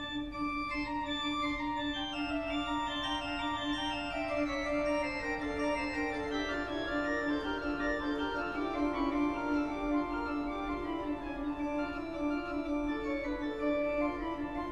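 Organ music: a held low note sounds steadily beneath chords that step slowly downward and then move on.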